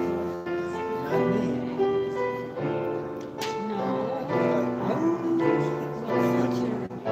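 Slow piano music: held chords that change about once a second.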